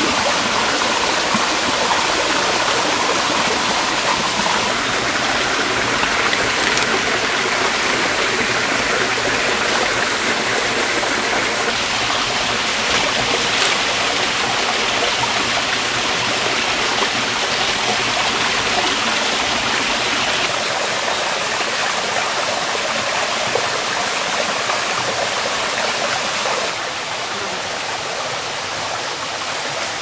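Shallow forest stream running over rocks: a steady rush of flowing water, a little quieter near the end.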